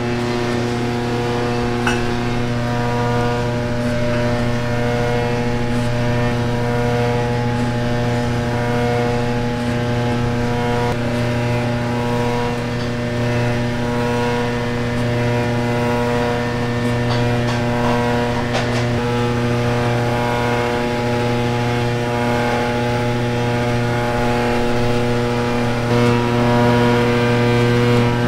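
Electric motor of a stainless-steel food mixing machine running steadily, churning blood sausage filling, a constant even hum with a few faint clicks.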